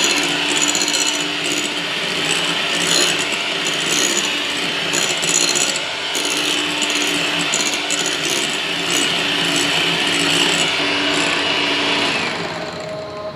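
Electric hand mixer running steadily at speed, its wire beaters whipping chilled cream in a glass bowl, with irregular scraping ticks as the beaters hit the glass. The motor winds down and stops near the end.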